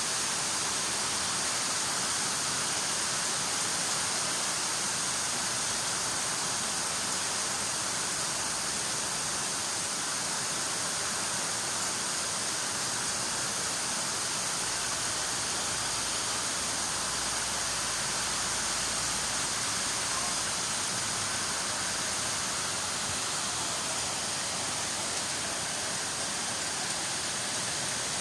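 Steady rain: an even, hissing wash of noise with no single drops or thunder standing out.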